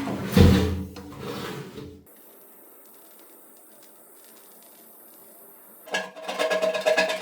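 Background music that breaks off about two seconds in, leaving a faint hiss with light ticks, before the music starts again near the end.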